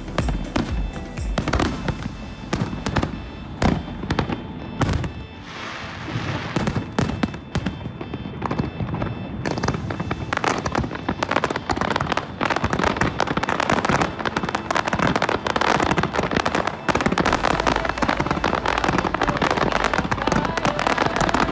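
Fireworks going off in rapid succession, bangs and crackling that become a dense, continuous crackle about halfway through, with music playing underneath.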